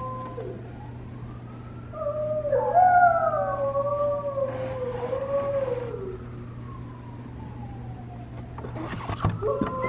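A husky howling: one long, wavering howl that sinks in pitch as it fades, then a few clicks and the start of another howl near the end.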